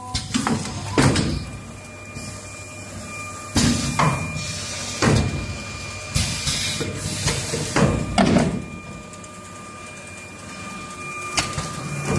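Wooden ice-cream spoon bundling machine running: about eight sharp clacks of its pneumatic cylinders and clamps at irregular intervals, with short bursts of hiss, over a steady mechanical hum.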